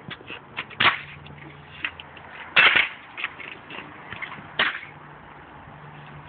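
Kick scooter on asphalt: a few sharp clacks of the deck and wheels striking the tarmac, with smaller ticks between. The loudest comes about two and a half seconds in.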